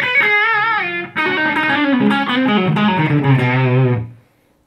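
Electric guitar played through an Idea Sound Product Fender Bassman-style drive pedal, a lead phrase with bent, wavering notes. After a short break about a second in comes a run down into low notes, which stops shortly before the end.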